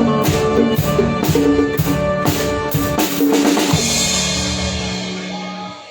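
A live band plays the end of a song: a drum kit keeps a steady beat under pitched instruments. About four seconds in it finishes on a cymbal crash and a held chord, which fade and stop just before the end.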